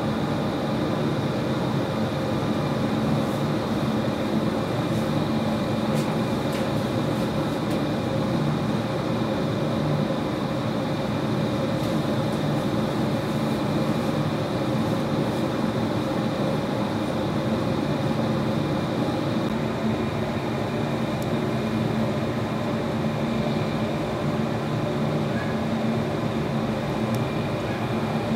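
Steady mechanical hum with several held tones, unchanging throughout, with a few faint clicks.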